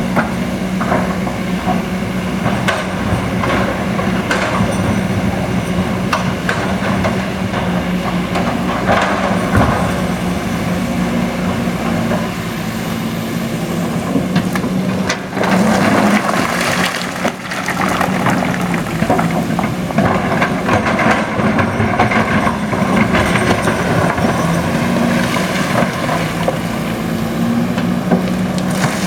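Heavy diesel machinery at a stone and soil quarry running steadily, with frequent knocks and clatter over the engine hum and a louder, rougher stretch about halfway through.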